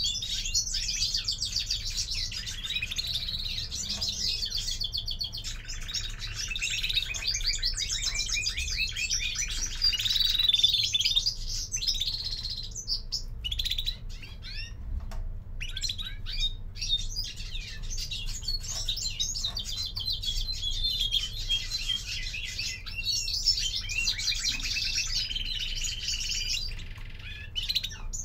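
Caged European greenfinches singing: rapid twittering trills and chirps, nearly continuous, with a couple of brief gaps in the middle.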